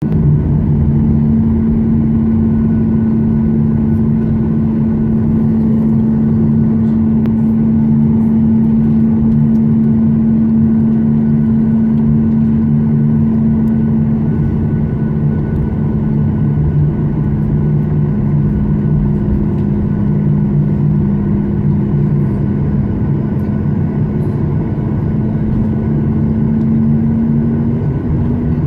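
Boeing 737 MAX 8's CFM LEAP-1B jet engines running with a steady hum over a rumbling roar; near the end the hum's pitch starts to rise as the engines begin to spool up.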